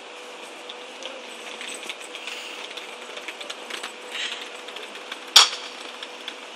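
Footsteps and small wheels clicking and rattling over brick paving, over a faint steady hum, with one sharp knock a little past five seconds in.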